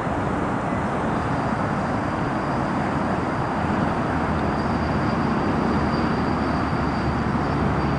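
Steady outdoor background rumble, like distant traffic, with a faint thin high whine that starts about a second in and fades near the end.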